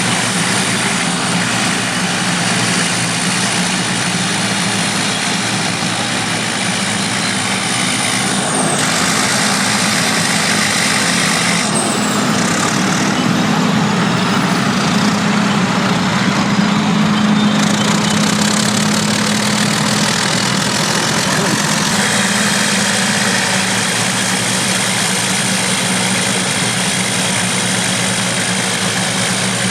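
Engines of pre-1960 vintage crawler bulldozers running steadily as the machines work, swelling a little about halfway through.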